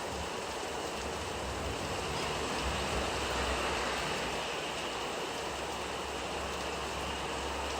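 Steady rain falling, a continuous even hiss, with a low rumble that swells a little about two to four seconds in.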